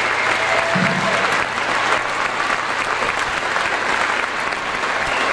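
Audience applauding, steady and sustained.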